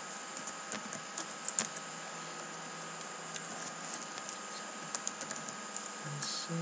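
Computer keyboard typing: irregular short key clicks, some in quick little bursts, as numbers are entered.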